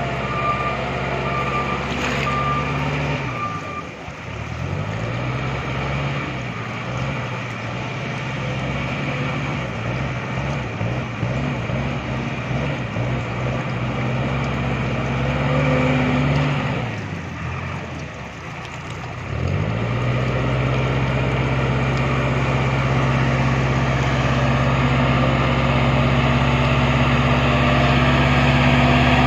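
Bull backhoe loader's diesel engine running, its note sagging and picking up again about four seconds in and again past the middle, then holding steady, with a reversing alarm beeping in the first few seconds.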